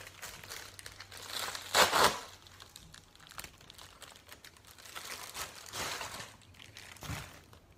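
A mailing envelope crinkling and rustling as it is handled and pulled open by hand. The loudest burst comes about two seconds in, with softer rustles later.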